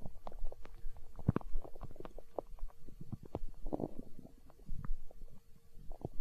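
Hungry human stomach gurgling and rumbling: a quick, irregular run of small pops and squelches, a louder gurgle about a second in, and a longer bubbly rumble near the middle.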